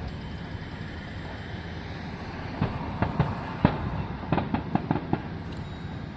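Fireworks show going off: a steady rumble, with a rapid irregular string of sharp pops and bangs about halfway through.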